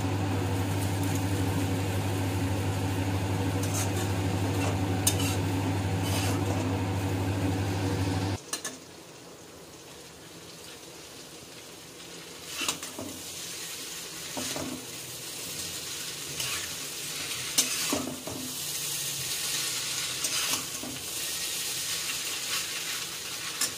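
Vegetable noodles being stir-fried and tossed in an iron kadai with metal utensils: clinks and scrapes of metal on the pan over a light sizzle. A loud steady low hum runs under the first third and cuts off suddenly about eight seconds in.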